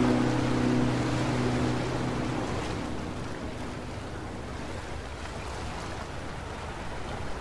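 The last sustained guitar notes of background music fade out over the first couple of seconds, leaving a steady wash of ocean surf that slowly grows quieter.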